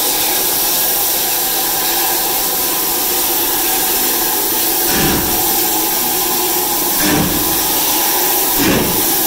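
LNER B1 class steam locomotive 61306 'Mayflower' standing with steam escaping in a loud, steady hiss. A few short deeper whooshes come through about 5, 7 and 9 seconds in.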